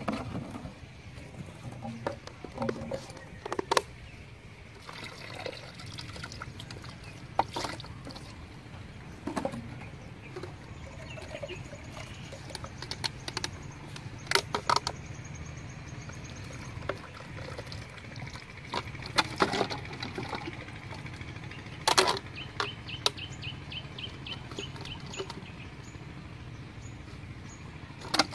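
Water poured and shaken out of plastic soda-bottle fish traps into a bucket of water, with scattered sharp clicks and knocks as the plastic bottles are handled.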